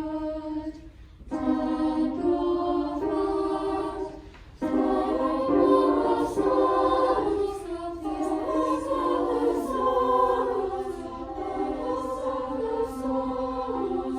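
Treble choir of young girls singing a round in three parts, the parts entering one after another so the melodies overlap. There are brief breaths in the singing about a second in and about four seconds in.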